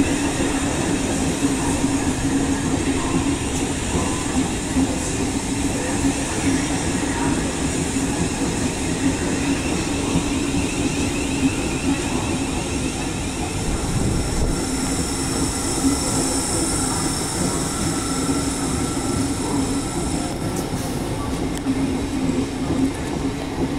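Thameslink Class 700 electric multiple unit running slowly along a station platform: a steady electric hum over the rumble of wheels on rail, with thin high electric tones joining in partway through.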